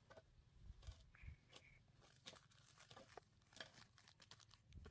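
Near silence with faint, scattered rustles and small clicks.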